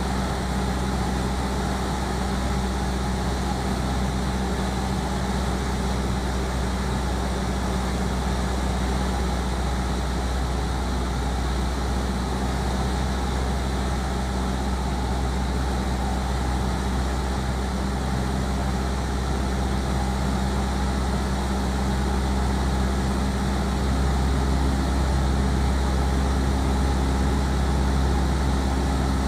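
Light aircraft's piston engine and propeller droning steadily in cruise flight, over a haze of rushing airflow. It grows slightly louder near the end.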